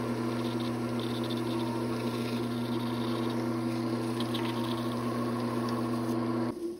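Wood lathe running at a steady speed with a steady motor hum, pen blanks spinning on the mandrel while thin CA glue is applied. The hum cuts off suddenly near the end.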